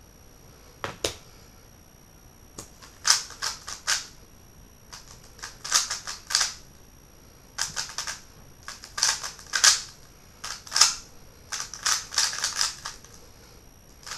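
A MoYu WeiLong GTS v2 M speedcube being turned fast during a timed solve: bursts of rapid plastic clicking and clacking, each a second or so long, broken by short pauses between sequences of moves.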